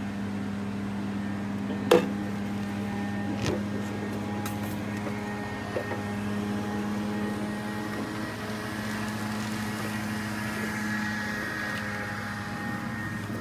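A steady mechanical hum, with a sharp knock about two seconds in and a couple of lighter knocks after it.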